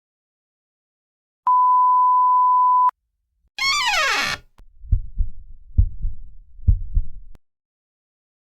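Editing sound effects in sequence: a steady censor bleep of about a second and a half, then a quick falling tone, then a heartbeat effect with three low double thumps.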